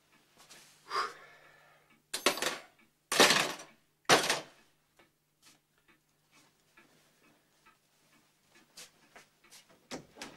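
Tools clattering and clinking in an open metal cantilever toolbox as it is rummaged through, in several loud bursts between about one and four and a half seconds in, followed by a few faint knocks.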